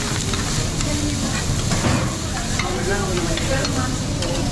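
Food sizzling on a hot teppanyaki griddle, a steady frying hiss, with metal spatulas scraping and clicking on the plate now and then. Faint voices murmur underneath.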